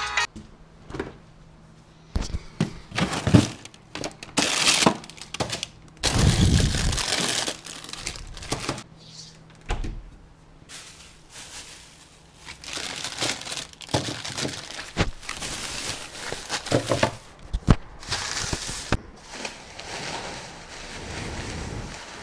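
Plastic bag and ice cream wrappers rustling and crinkling as they are handled, with irregular knocks and thuds between the rustles.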